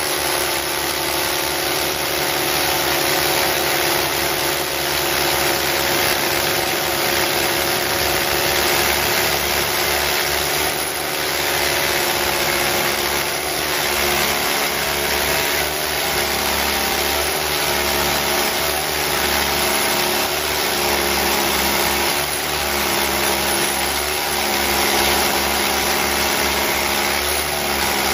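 Two corded rotary hammers, a Bosch and a Makita, drilling into concrete blocks at the same time: a steady, loud hammering drone that runs without a break.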